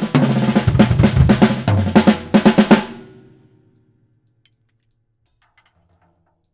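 Acoustic drum kit playing an odd-meter funk groove in 17/16 on snare, bass drum and cymbals, stopping about three seconds in. The kit rings out and fades, leaving near silence with a couple of faint ticks.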